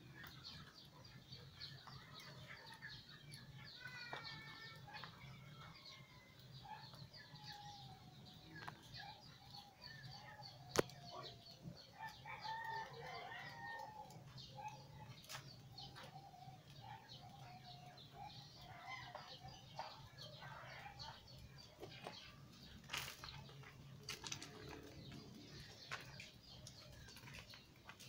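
Faint outdoor ambience with birds calling on and off in short wavering calls over a steady low hum, and one sharp click about eleven seconds in.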